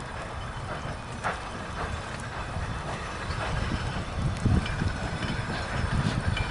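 Narrow-gauge Rio Grande caboose and cars rolling slowly over the track, wheels clicking and rumbling on the rails, getting louder as they come closer from about four seconds in.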